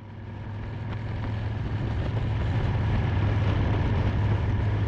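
Harley-Davidson motorcycle engine running steadily at road speed, a low hum with wind and road noise over it, fading in over the first couple of seconds.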